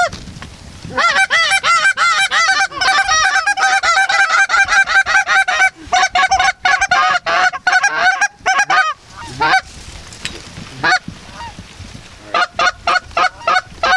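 Goose honks and clucks in fast, closely spaced runs, loud and close. A long run starts about a second in and lasts until about 9 s, then come two single honks, and a second quick run starts near the end.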